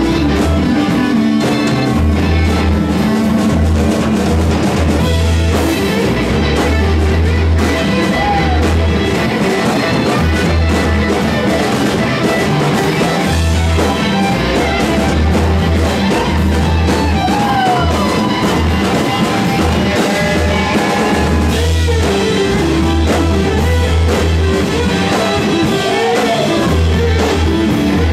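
Rock band playing live: electric guitar, drum kit and a heavy bass line, with singing.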